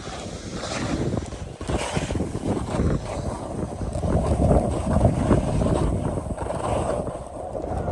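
Skis sliding and scraping over groomed, packed snow through a series of turns, swelling and easing with each turn, with wind rushing over the phone's microphone.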